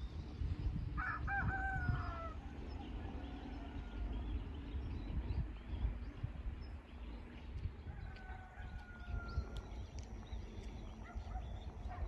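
A rooster crowing once about a second in, a wavering call with a clear pitch, followed later by a second, fainter and longer falling call. An uneven low rumble runs underneath.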